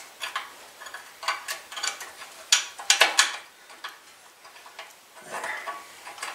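Scattered metallic clicks and taps of hand tools and hardware against a Husqvarna riding mower's engine as a part is worked into place by hand, with a cluster of sharper clicks about halfway through.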